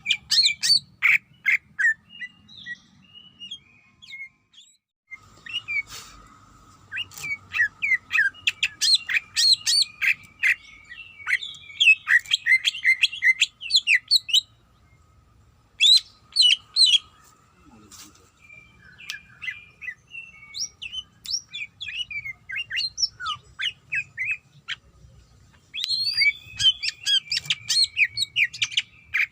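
Greater green leafbird (cucak ijo) singing in rapid bursts of sharp, chattering whistled notes, broken by short pauses twice. A faint steady tone and a low hum run underneath.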